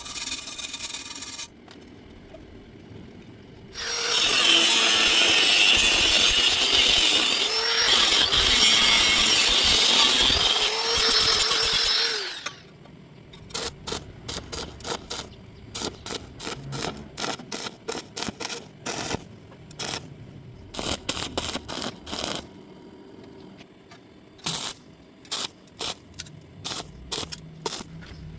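A handheld power tool runs for about eight seconds, its pitch sagging twice as it bears down on the metal. It is followed by a long, irregular series of short, sharp clicks and taps.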